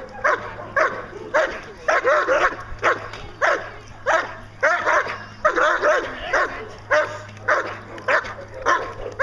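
A 14-month-old German Shepherd barking rapidly and repeatedly, about two barks a second, at an agitating helper during Schutzhund protection work.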